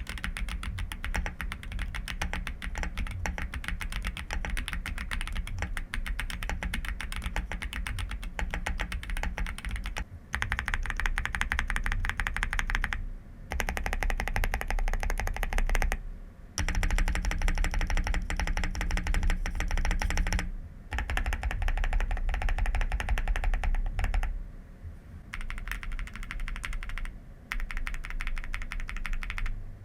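Fast typing on a Chilkey PAW65 mechanical keyboard: a dense, continuous run of key clacks, broken by a few short pauses of under a second.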